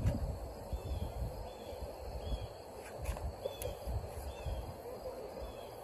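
Outdoor ambience: a bird repeating a short arched call over and over, about once a second, over a steady low rumble.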